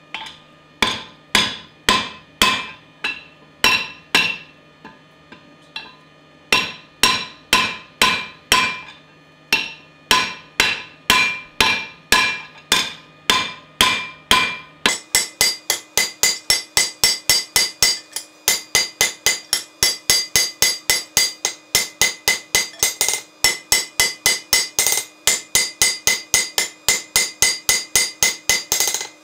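Hand hammer striking red-hot steel on an anvil to draw out the back of an axe head into a flat-sided taper: sharp ringing blows about two to three a second, with short pauses between runs. About halfway through the recording is sped up to double speed, so the blows come about twice as fast and the ring and background hum sound higher.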